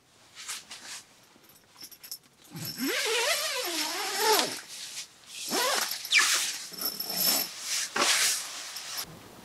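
A drawn-out, wavering vocal moan lasts about two seconds. It is followed by bouts of rustling as the tent fabric is pushed and moved.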